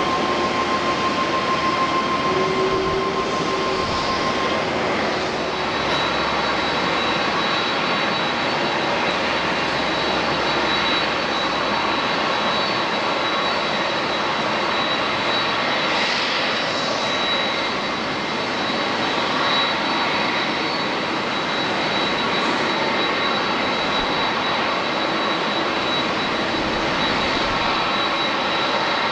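Jet engines of a Boeing 787-9 Dreamliner, a steady loud rush with a thin high whine that comes in about six seconds in.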